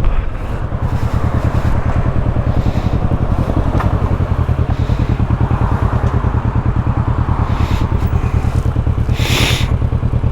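Motorcycle engine running steadily while riding, a low pulsing engine note, with a brief hiss about nine seconds in.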